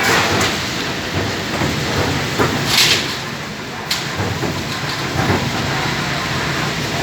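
Amada CNC turret punch press running through a programmed job: a continuous mechanical clatter with sharp clicks, and a short hiss about three seconds in.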